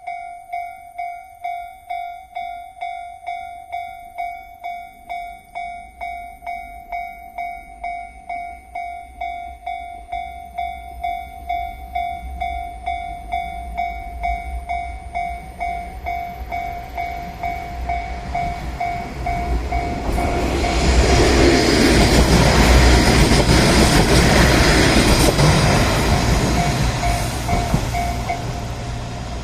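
Level-crossing warning bell ringing in a steady rhythm while a KiHa 47 diesel railcar approaches slowly. The railcar's engine and wheel rumble builds from about halfway through, is loudest for several seconds near the end as the railcar crosses, then starts to ease off while the bell keeps ringing.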